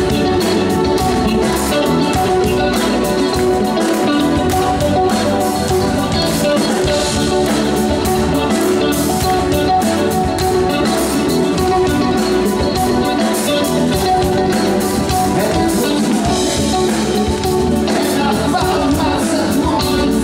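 Live rock band playing steadily and loudly: electric guitar, keyboards, bass and drums, with a male voice singing.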